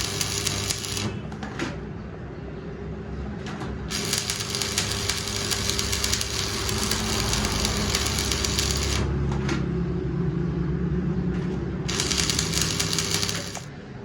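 Metalwork on a steel truck rim: a steady electrical hum with three stretches of harsh, crackling hiss lasting a few seconds each, near the start, from about four to nine seconds, and again near the end.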